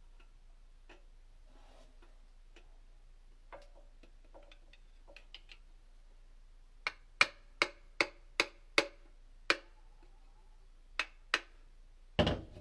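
Hammer tapping on metal parts of a stripped-down Subaru FA20 engine block, to work the internals loose. Faint clinks come first, then a quick run of about seven sharp, slightly ringing metallic taps, two more taps, and a heavier knock near the end.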